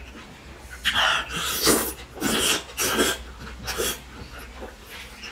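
Five loud, wet slurps in quick succession as spicy raw oysters in chili sauce are sucked off a skewer.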